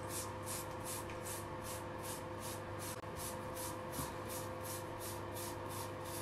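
Rapid strokes of a bristle wave brush over short hair, a quick hissing swish about four or five times a second, over a steady faint hum.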